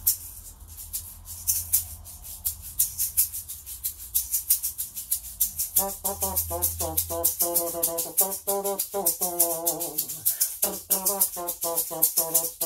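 Salsa-style music: a shaker keeps a steady fast rhythm of about five strokes a second, and about six seconds in a pitched melody comes in over it.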